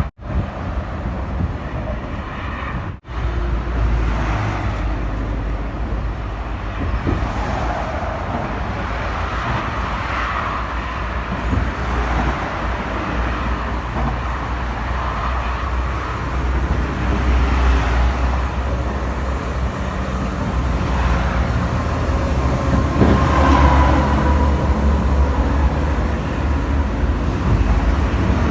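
Steady road-traffic rumble with low wind noise on the microphone. The sound cuts out briefly about three seconds in.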